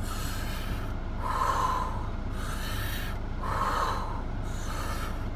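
A man breathing hard in and out in an even rhythm, about five forceful breaths. He is demonstrating the lifting breath pattern: breathing out as the weight goes up and in as it comes down.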